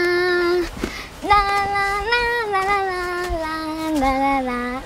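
A girl's voice singing a simple melody in long held notes, breaking off briefly about a second in.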